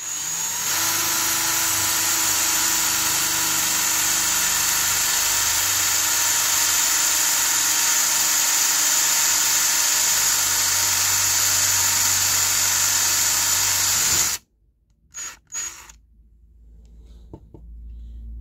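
Ryobi cordless drill running steadily as a twist bit bores a hole into wood, for about fourteen seconds, then cutting off abruptly; a couple of brief short sounds follow.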